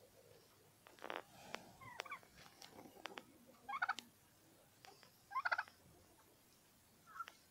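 Domestic turkey toms gobbling: two gobbles, about four and five and a half seconds in, with shorter calls between and a brief one near the end.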